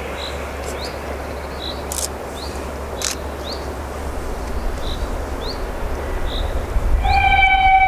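Steam locomotive approaching, its low rumble growing, then its whistle sounding one loud, steady note about seven seconds in. A small bird chirps repeatedly throughout.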